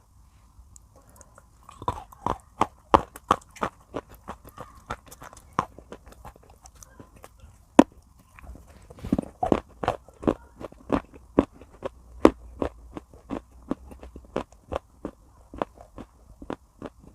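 Pieces of baked clay pot being chewed close to the microphone: sharp, brittle crunches at about three a second, starting about two seconds in, with a denser burst of crunching near the middle.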